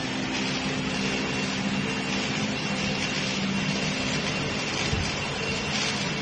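Lefu LF1700-D2 large-format roll laminator running, its rollers turning steadily as film and a printed banner feed through. It makes a steady mechanical hum with a thin high tone over it.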